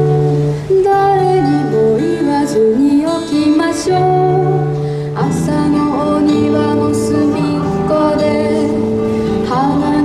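A girl singing a slow, gentle melody into a handheld microphone over an instrumental backing track of plucked strings.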